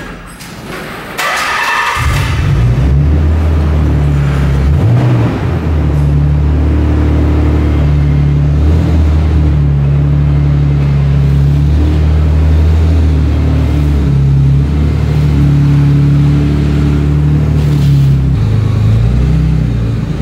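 Nissan 300ZX twin-turbo VG30 V6 engine cranked briefly and starting about two seconds in, then running steadily, its speed stepping up and down a few times.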